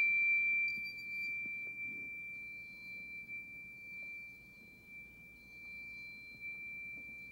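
Small round Chladni plate bowed at its edge with a violin bow, ringing with one clear, high, steady tone that slowly fades, with faint higher overtones coming and going above it.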